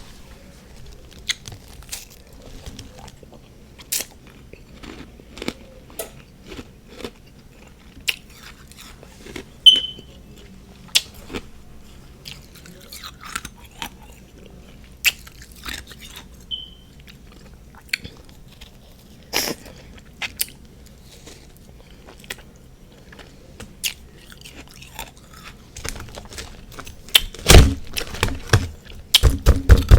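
Close-up crunching and chewing of frozen freezer frost, sharp crunches every second or so with softer chewing between. Near the end comes a louder run of rapid clicks and crunches.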